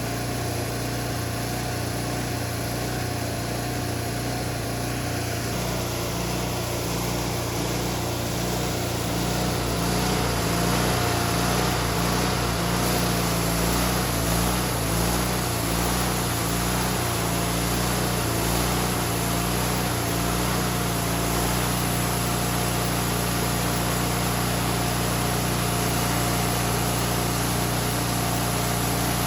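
Wood-Mizer LT40 band sawmill running steadily under engine power, with a faint wavering whine above the engine note. It gets a little louder about ten seconds in.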